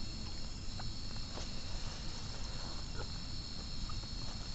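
Crickets or similar night insects giving a steady, high-pitched trill, with a few faint clicks.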